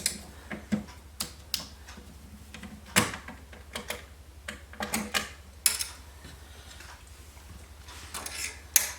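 Irregular clicks and knocks of screws and hardware being handled while an optical drive is screwed into a PC case, with the sharpest knocks about three seconds in and near the end.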